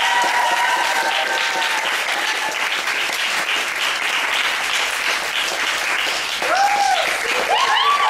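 Audience applauding, with voices whooping and cheering near the start and again over the last second or two.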